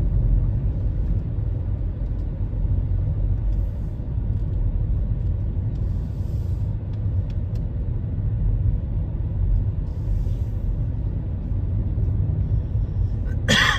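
Steady low road rumble of a car heard from inside the cabin while driving: engine and tyre noise, with no sharp events.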